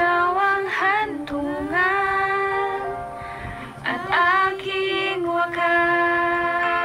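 A woman singing a melody with long held and gliding notes, over music, in two phrases: the second begins about four seconds in.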